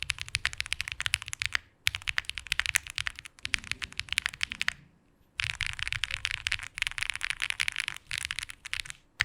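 Fast typing on an Answer Studio AS65 gasket-mount mechanical keyboard with an FR4 plate and GMK keycaps: rapid runs of crisp keystrokes, broken by short pauses about two, five and eight seconds in.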